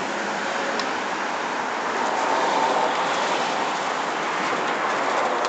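Steady road traffic noise with a vehicle passing, swelling about two seconds in and easing off again.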